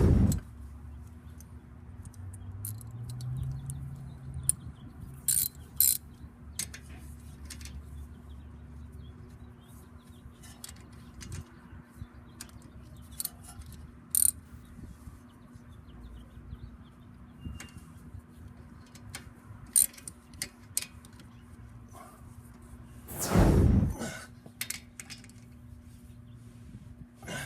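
Hand tools at work on a car's front brake caliper: a ratchet clicking as the caliper bolts are tightened, with scattered sharp metal clinks. There are two louder bursts of noise, one at the start and one about 23 seconds in.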